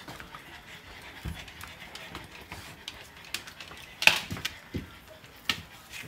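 French bulldog panting, with a few light clicks and a sharp knock about four seconds in.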